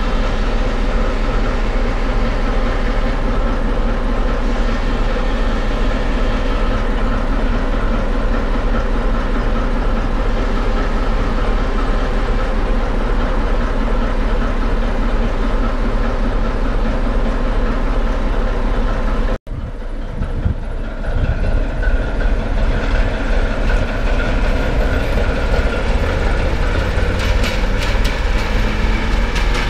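ČD class 749 'Bardotka' diesel locomotive, the silenced version, running with a steady engine hum while it stands. About two-thirds of the way through the sound changes abruptly to the locomotive moving, its engine working harder and deeper, with clicks near the end.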